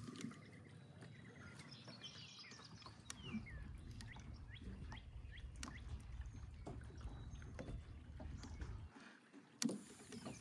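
Scattered light knocks and a low rumble of handling aboard a small fishing boat, with a few bird chirps in the background.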